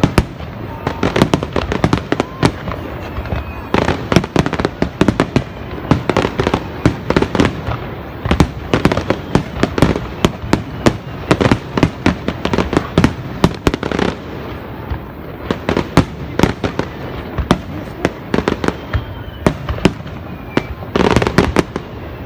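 Fireworks finale: many aerial shells bursting in quick succession, several bangs a second, mixed with crackling.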